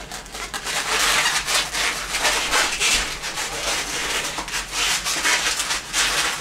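Latex 260 modelling balloons rubbing against each other and against the hands as they are twisted together, in a busy run of quick rubbing strokes.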